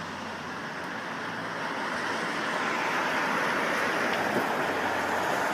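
Tyre hiss of a vehicle on a wet road, growing steadily louder as it approaches, over a low steady hum.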